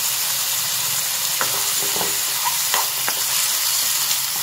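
Mushrooms, onions and spice powders sizzling in hot oil in a kadai, a steady hiss. A steel spoon stirs them, clinking and scraping against the pan a few times.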